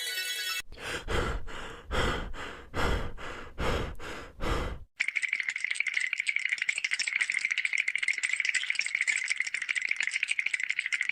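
Cartoon rattle sound effects: a run of separate rattling shakes, then a continuous fast rattle for about six seconds that cuts off suddenly.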